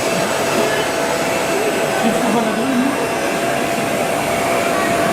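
Steady din of a busy exhibition hall: a dense, even noise with a constant high whine running through it, and faint voices mixed in.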